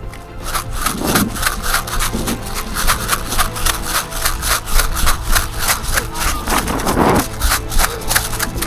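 Quick crunching and rustling footsteps through woodland undergrowth at a run, about four to five crackles a second.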